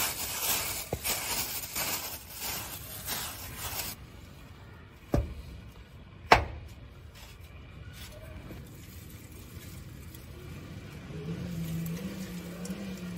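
Bristle brush sweeping loose moulding sand off an aluminium pan pattern in rapid scratchy strokes for the first few seconds. Then two sharp metallic knocks as a rusted steel casting flask ring is set down around the pattern, the second louder.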